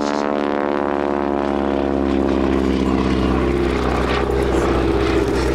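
Boeing Stearman biplane's radial engine and propeller running as the aircraft flies past, the pitch falling as it goes by and then settling lower.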